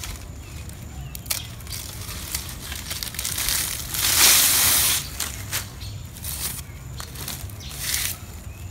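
Dry palm leaves rustling and tearing as they are worked, with scattered crackles and clicks and one louder tearing rush of about a second and a half near the middle.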